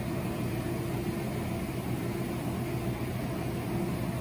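A steady, unchanging machine hum with two held tones, one low and one somewhat higher, over an even background hiss.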